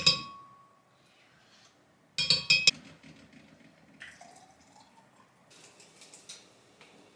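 Glassware clinking in two short clusters about two seconds apart, the first leaving a brief ringing note, followed by faint small handling sounds.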